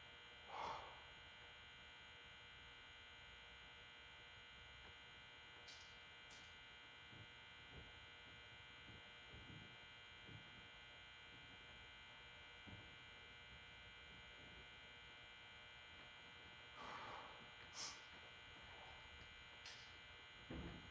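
Near silence: room tone with a steady electrical hum and buzz, broken by a few faint short sounds, one near the start and a couple near the end.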